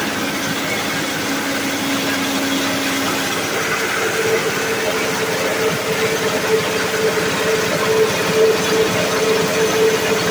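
Corn cracking machine running steadily, breaking dried corn kernels that pour out down its perforated sieve chute. Its steady hum shifts to a higher tone about three seconds in.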